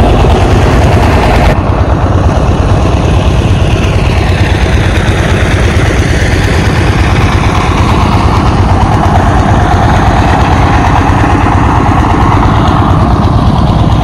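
Engine of a rice threshing machine running steadily, with a fast, even low thudding; the sound changes abruptly about one and a half seconds in.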